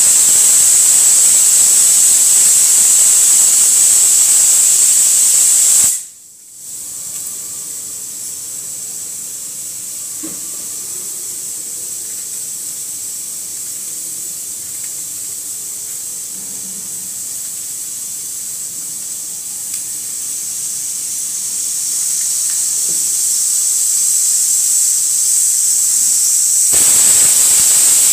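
Steam hissing steadily and loudly. It cuts out briefly about six seconds in, comes back quieter and builds back up near the end.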